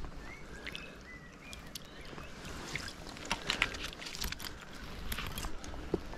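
River water splashing and trickling around a hand as a small brown trout is lowered into the water and released, with scattered sharp splashes and drips about three and five seconds in.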